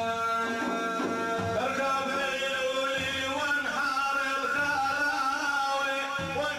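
Male voice singing Sufi religious praise (madih) in a Middle Eastern style: long held notes that waver and bend in ornamented runs.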